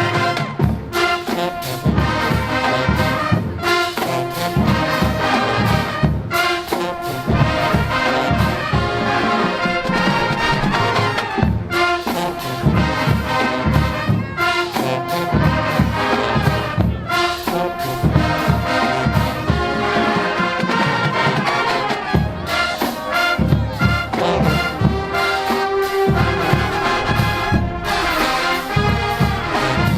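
College marching band playing at full volume: trumpets and trombones carry the tune over a steady drumline beat.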